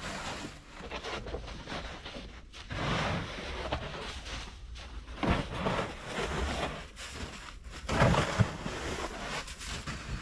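Snow crunching and scraping in irregular bursts as feet tread through deep snow and snow is packed along the base of the shelter, the loudest crunch about eight seconds in, over a steady low rumble.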